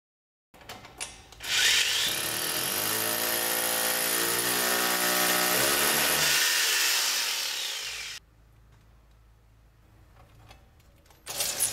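Power drill running under load for about six seconds, its pitch shifting as it turns, then cutting off sharply. A short second burst comes near the end. This is a Wall-Dog screw anchor being set in masonry.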